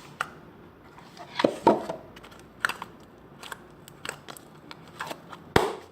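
Aqua-green slime being squeezed and stretched by hand, giving off irregular wet clicks and pops, the loudest about a second and a half in and just before the end.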